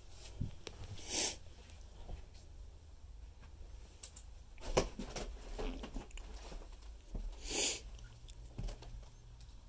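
Footsteps crunching and crackling over debris and broken flooring, with scattered small clicks and two short, louder rustling crunches, one about a second in and one near the end.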